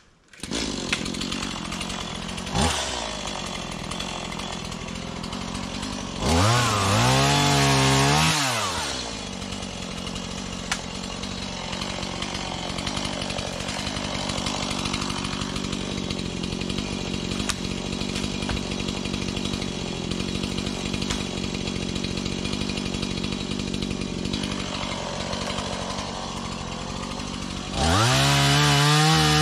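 Small Stihl two-stroke chainsaw starting up and settling to a steady idle, revved to full throttle for about two seconds around six seconds in, with the pitch climbing and falling away, then idling again before revving up once more near the end.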